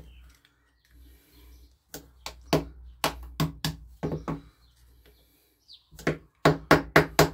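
Small hand tools and metal parts clicking and tapping on a wooden workbench: needle-nose pliers and a screwdriver worked against a two-stroke piston's small needle bearings. A few sharp clicks come in the middle, and a quick run of about five comes near the end.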